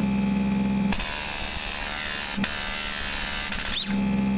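Large pneumatic impact wrench running on a steel bolt seized by corrosion in an aluminium steering knuckle: a hissing buzz for about three seconds from about a second in, ending with a quick rising whine.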